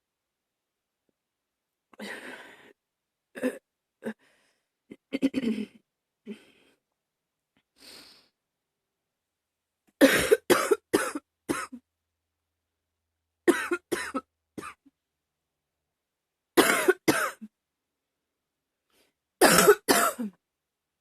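A woman coughing: a few softer coughs and breaths at first, then, from about ten seconds in, four loud fits of two to four hard coughs each, about three seconds apart.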